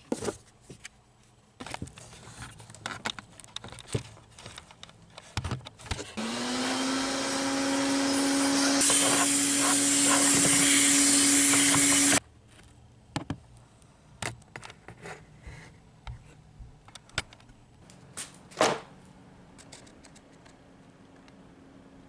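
An electric motor and fan spin up with a short rising whine, run steadily for about six seconds with rushing air that grows louder partway through, then cut off suddenly. Scattered clicks and knocks come before and after.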